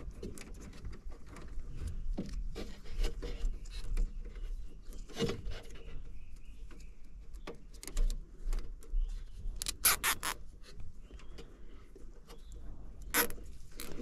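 Rustling and clicking of wiring being handled inside a heat pump's control compartment, with short sharp rasps of plastic zip ties being ratcheted tight, a quick cluster about ten seconds in and another just after thirteen seconds.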